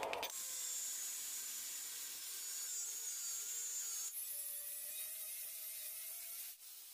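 Angle grinder with an abrasive cut-off disc cutting through square steel tube: a steady high-pitched whine over a grinding hiss. The tone shifts about four seconds in, and the sound gets quieter near the end.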